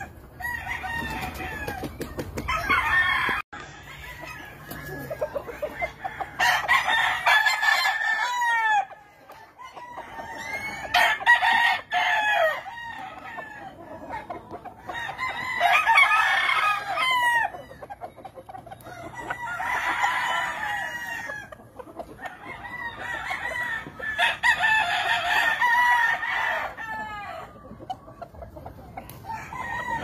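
Several roosters crowing in overlapping calls, a new round about every four seconds, with quieter calls between rounds.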